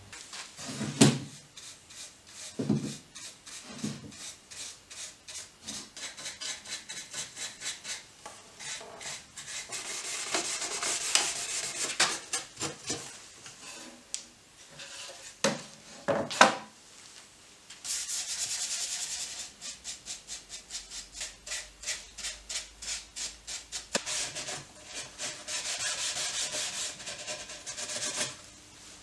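A cloth rubbing a finish onto pine wood in quick, repeated strokes. Now and then there is a sharp knock as the wooden drawers or case are handled; the loudest knocks come about a second in and around sixteen seconds in.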